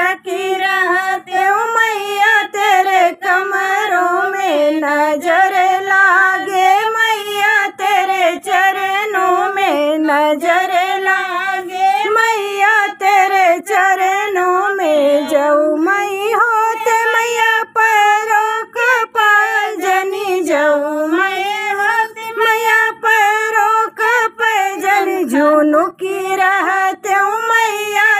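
A woman singing a devi pachra, a Hindu devotional folk song to the Mother Goddess, solo in a high voice with a gliding, ornamented melody and short breaths between phrases.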